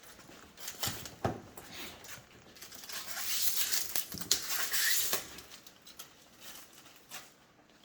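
Packaging paper and tape rustling and crinkling as they are pulled off a newly installed dishwasher, with scattered small clicks and knocks. The rustling is loudest from about three to five seconds in.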